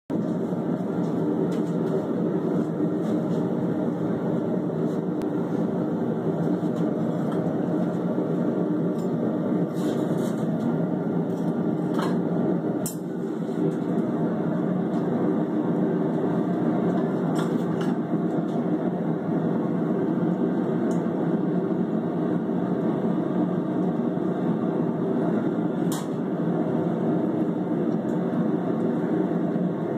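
Gas forge burner running with a steady rushing noise, with a few short metal clicks and clinks scattered through it.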